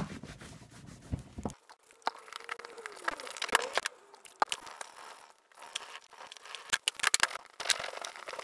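Cloth rubbing and wiping over the ribbed seat of a Raleigh Chopper bicycle as it is cleaned with leather cleaner: a run of uneven scratchy, rustling strokes.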